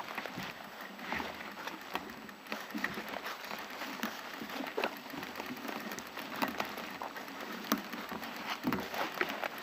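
Irregular crackling and rustling of dry twigs, needles and moss on a pine-forest floor as someone moves across it, with scattered sharp snaps.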